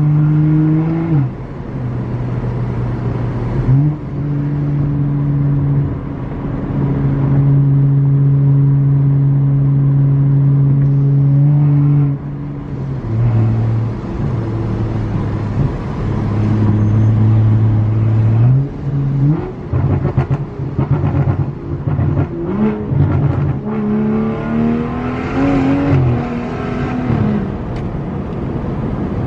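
BMW 435i's turbocharged inline-six (N55), heard from inside the cabin. It runs steadily at first, drops and steps in pitch, then revs up in several rising pulls in the second half that sound choppy and break up. The engine is still misfiring and dying out near the top of the rev range, which new NGK spark plugs have not cured.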